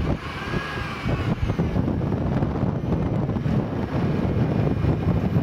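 Wind buffeting the microphone: a loud, ragged low rumble that stays through the whole stretch.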